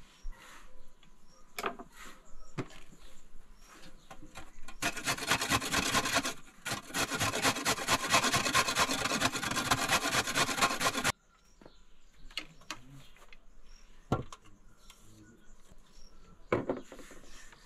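A carrot is grated in quick strokes on a metal box grater, a dense scraping for about six seconds that cuts off abruptly. Light clicks come before it and a couple of sharp knocks after it.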